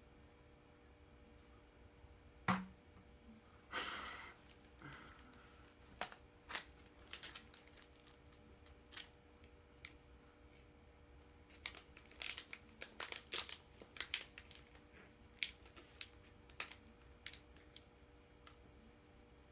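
Plastic wrapper of a Milky Way candy bar being torn and peeled off by hand, crinkling and crackling in irregular bursts that come thickest past the middle. There is a sharp click about two and a half seconds in.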